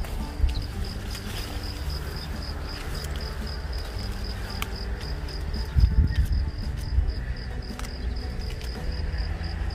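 Cricket chirping in a fast, even pulse, about five chirps a second, over a low rumble that swells briefly about six seconds in.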